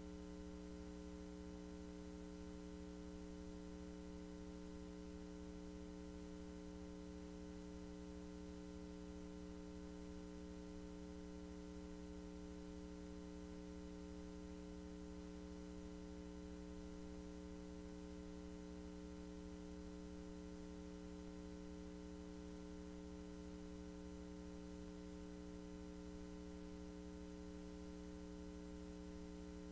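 Steady electrical hum with a faint hiss, unchanging throughout.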